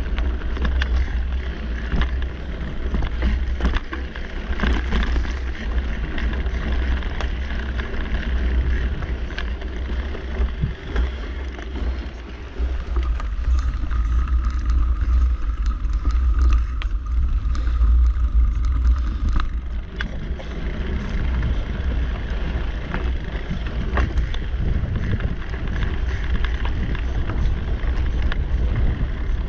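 Wind buffeting the microphone of a camera on a mountain bike riding a dirt singletrack, over the rush of the tyres and frequent small rattles and clicks from the bike over bumps. In the middle, for about six seconds, the rush thins and a faint steady tone comes through.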